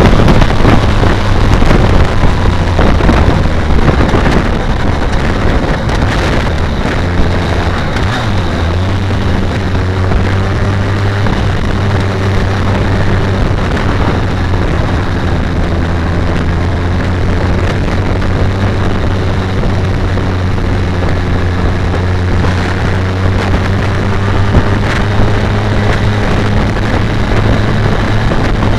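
BMW K1200R Sport's inline-four engine running at steady road speed, with wind rushing over the microphone. The engine note drops a little in the first few seconds, then holds steady.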